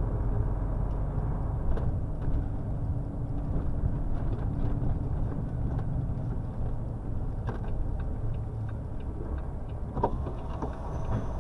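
Steady low rumble of a truck's diesel engine and road noise heard from inside the cab while driving, with faint scattered ticks.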